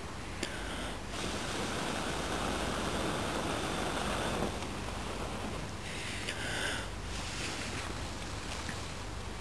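A person blowing long, steady breaths onto a glowing ember in fluffed string and wool tinder to coax it into flame: one long blow from about one to four and a half seconds in, then a shorter, hissier blow around six seconds in.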